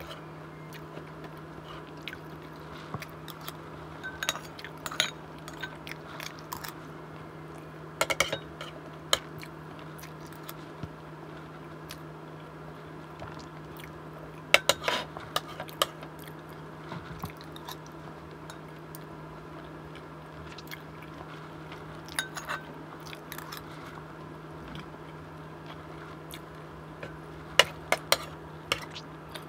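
Metal spoon clinking and scraping against ceramic bowls in a few short clusters of sharp clicks, with chewing between them, over a steady low hum.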